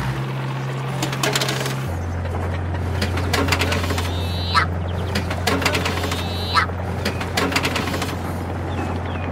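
Dubbed sound effects for a toy excavator: a steady low engine-like drone that drops in pitch about two seconds in, with scattered clattering clicks and two quick falling whistles, one about four and a half seconds in and one about six and a half seconds in.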